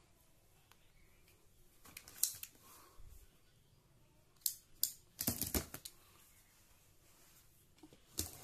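Short sharp clicks and scrapes of a red-handled cutting tool being handled against a taped cardboard carton: one about two seconds in, a quick run of them around the middle, and another near the end.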